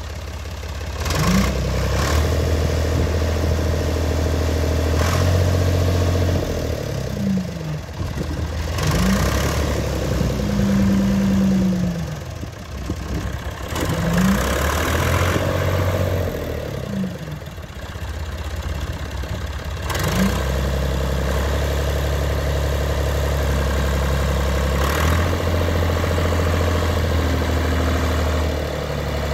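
Ford 555 backhoe loader's diesel engine running, its revs rising and falling in steps as the loader arms are worked. A few sharp clunks come through it.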